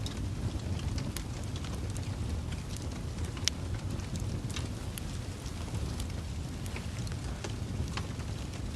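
Wood fire in a fireplace burning with a steady low rumble of flames and irregular sharp crackles and pops from the logs, one louder pop about three and a half seconds in.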